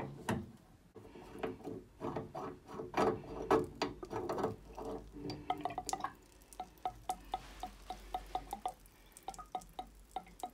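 Brass diverter valve cartridge of a Baxi 600 combi boiler being unscrewed by hand and drawn out of its valve body: light metallic clicks and scraping. In the second half this becomes a regular run of small clicks, about four a second.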